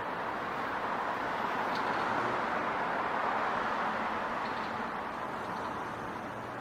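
City street traffic noise: a steady rush that swells between about one and a half and four and a half seconds in, then fades, as a vehicle passes.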